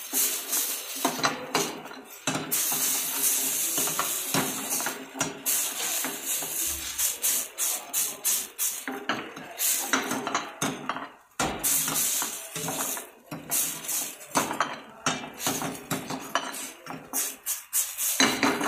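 Metal ladle stirring a thin sauce of vegetables and mushrooms in a stainless steel frying pan, scraping and knocking against the pan irregularly and often.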